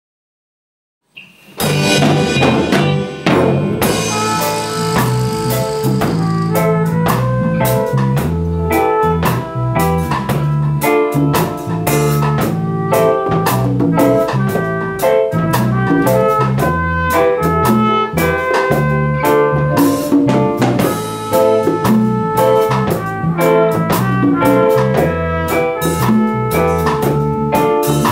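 A band playing live: drum kit, guitar and trumpet together, with a steady beat. The music starts suddenly about a second and a half in, after a moment of silence.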